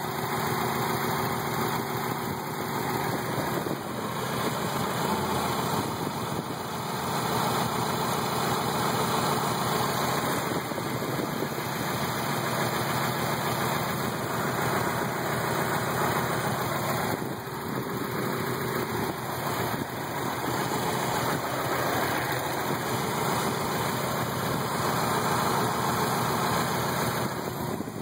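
1990 Mazda Miata's 1.6-litre twin-cam four-cylinder engine idling roughly, heard up close in the open engine bay. The owner says the idle speed is at spec while the engine rocks back and forth, and suspects a possible crankshaft problem.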